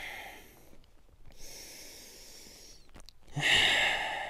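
A person breathing audibly: a quiet breath in, then a louder breath out like a sigh about three and a half seconds in.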